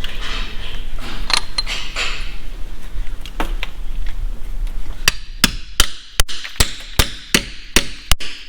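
Hammer blows on a tool packed with bread in the crankshaft's pilot-bearing bore, using the bread to force the stuck bearing out. A few scattered knocks come first; from about halfway there is a steady run of sharp strikes, two to three a second.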